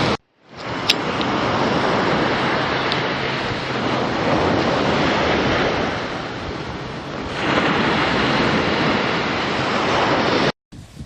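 Big sea waves breaking and washing over a rock wall, a continuous rush of surf with wind on the microphone. It eases briefly, swells again about three-quarters of the way through, and cuts off sharply near the end.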